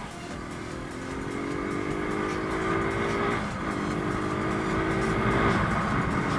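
Rusi Gamma 200 motorcycle engine pulling under acceleration, its pitch climbing steadily, with a short break and drop in pitch about three and a half seconds in and another drop near the end as it shifts up. Wind rushes over the microphone underneath.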